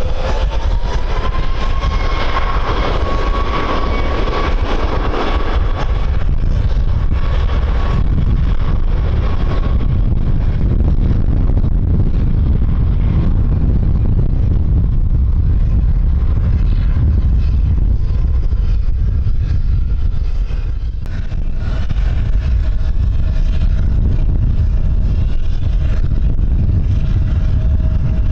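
Jet airliner engines running loud, with a whine that rises at the start and then holds steady, over a heavy low rumble of wind on the microphone. A second, fainter steady tone comes in about three quarters of the way through.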